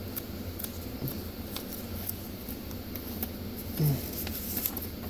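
Faint handling noises of hands on a picture book's pages: scattered small clicks and light rustles, with a brief low vocal murmur about four seconds in.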